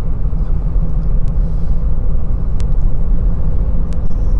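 Steady low rumble of a car's engine and tyres heard from inside the cabin while driving, with a faint tick about every second and a quarter.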